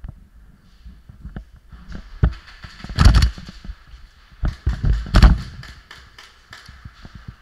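Airsoft gunfire in two quick bursts of sharp cracks, about three seconds in and again about a second and a half later, with scattered knocks from the camera and gear shaking.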